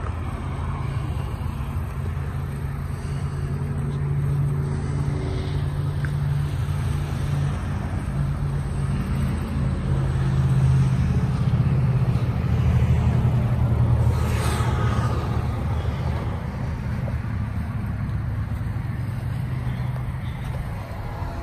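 Steady low rumble of a running motor vehicle engine, swelling in the middle, with a brief hiss about fourteen seconds in.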